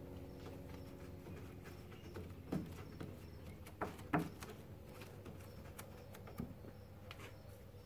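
Dry carbon fiber cloth handled and pressed onto a 3D printed body panel with gloved hands: scattered rustles and a few short, sharp taps, the loudest about two and a half and four seconds in.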